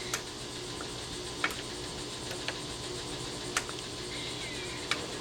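Light, scattered clicks from the smart deadbolt's key and mechanism being worked by hand, about five in all, over a steady low hum. The key is not turning the lock.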